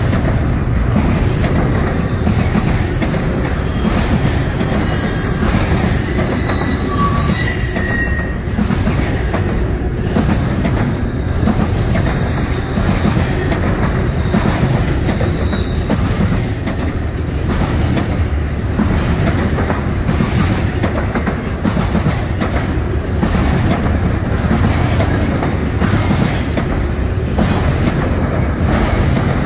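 Double-stack intermodal freight train rolling past close by: a steady heavy rumble and clatter of wheels on rail. Brief high-pitched squeals come from the train's running gear about two to eight seconds in and again around fifteen to seventeen seconds.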